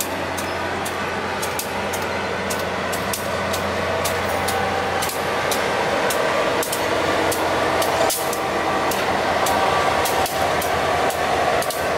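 Four-axle diesel-electric freight locomotive, Vermont Rail System 208, passing at low speed, its engine growing louder as it comes alongside. Sharp clicks from the wheels on the track come through all the while.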